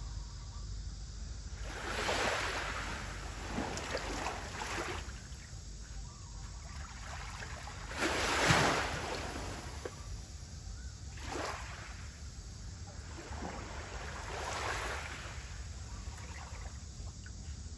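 Small sea waves lapping onto the shore, each wash rising and falling away every few seconds, the loudest about halfway through, over a low steady rumble.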